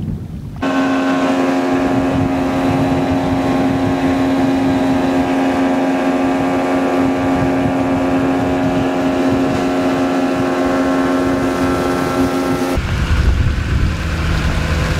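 Outboard motor of a jon boat running at a steady speed under way, a constant droning tone with wind over it. Near the end the drone cuts off and a low engine rumble takes over.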